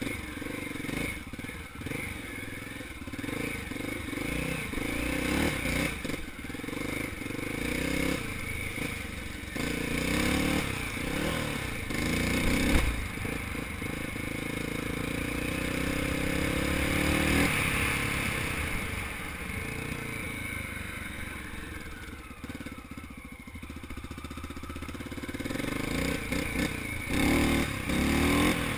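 Honda XR600R's air-cooled four-stroke single-cylinder engine running under way off-road, its pitch rising and falling as the throttle is opened and rolled off. About halfway through the revs climb for several seconds, then drop off suddenly.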